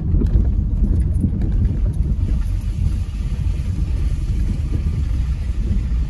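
Steady low rumble inside a moving car's cabin, driving along a muddy, rutted dirt road: the engine running and the tyres and suspension working over the rough, wet surface.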